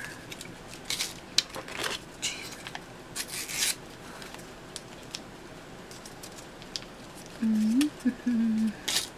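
Small paper pepper packets being torn open, crinkled and shaken over a pizza slice: scattered short rustles and tearing noises, the longest about three and a half seconds in. Near the end, a short hummed "mm".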